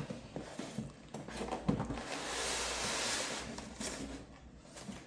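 Cardboard box and packaging being handled: scattered light knocks and rustles, then a steady rustling slide for about two seconds in the middle.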